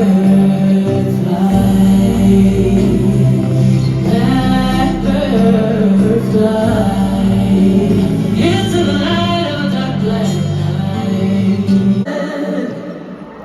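Music with singing over a heavy, steady bass; it cuts off suddenly about a second before the end, leaving quieter sound.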